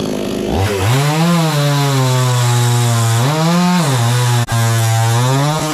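Chainsaw engine running at high speed, its pitch rising and falling back twice, with a brief cut-out about four and a half seconds in.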